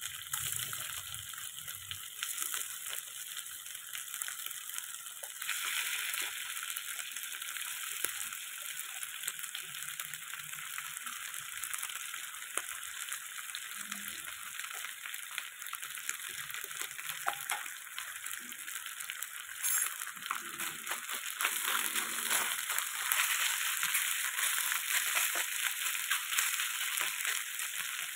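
Marinated chicken pieces sizzling as they fry in hot oil in a stainless steel pan, with faint ticks as more pieces are dropped in. The sizzle grows louder about six seconds in and again in the last third as the pan fills.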